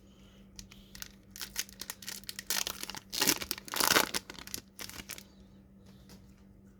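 Pokémon booster pack's foil wrapper crinkling and tearing as it is ripped open, a run of rustles and rips that is loudest about three to four seconds in and stops about five seconds in.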